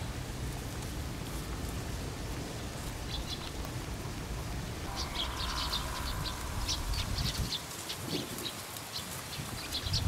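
Small birds chirping in quick, short notes from about halfway through, over a steady outdoor hiss and low rumble.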